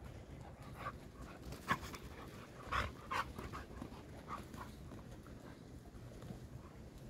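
Two dogs panting as they play-wrestle, with a few short, louder sounds about two and three seconds in.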